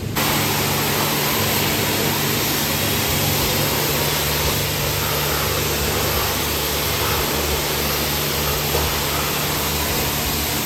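Car-wash pressure washer spraying: a steady hiss of the water jet over a low motor hum, even in level throughout.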